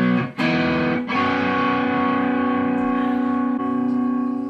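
Electric guitar strumming chords. There are two quick chord changes near the start, then one chord rings on for a couple of seconds.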